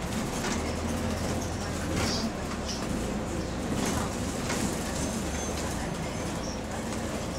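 Bus under way, heard from inside the passenger saloon: a steady low drone from the engine and electric cooling fans, over road noise.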